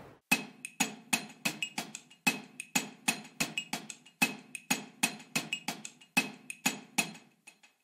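A quick run of sharp clicks or knocks, about three to four a second in an uneven rhythm, thinning out and fading near the end.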